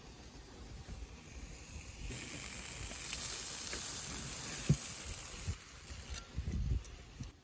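Food sizzling in hot fat or on a hot pan, a hiss that swells about two seconds in and falls away after five seconds, with one sharp knock partway through and a few soft thumps near the end.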